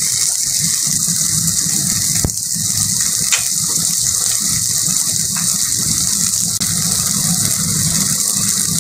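Onions, garlic and tomato frying in mustard oil in a non-stick kadai: a steady sizzle, with a few light clicks as spices go in.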